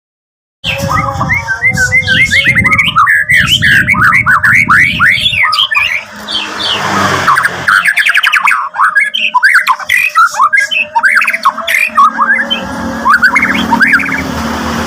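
White-rumped shama (murai batu) singing hard from about half a second in: a fast, unbroken run of varied whistles and chattering notes. This is the aggressive full song (gacor) of a bird worked up to take on a rival.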